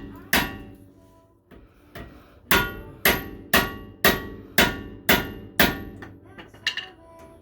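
Hammer striking metal in sharp, ringing blows, working loose a brake rotor retaining screw. There is one blow near the start, then a steady run of seven at about two a second, and a few lighter taps near the end.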